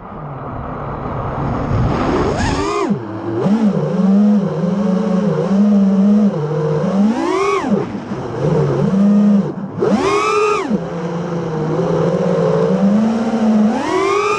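A 5-inch FPV racing quadcopter (Armattan Rooster) with 2150 kV motors and three-blade props, whining. Its pitch rises and falls with the throttle. There are sharp rising punches about two and a half seconds in, midway, around ten seconds and near the end, with dips in between.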